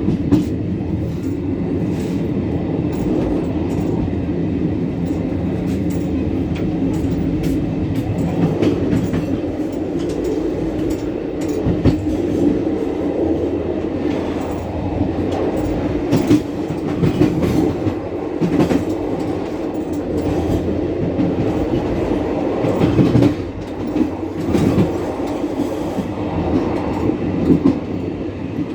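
Passenger train running along the track: a steady low rumble with irregular clicks and knocks from the wheels on the rails.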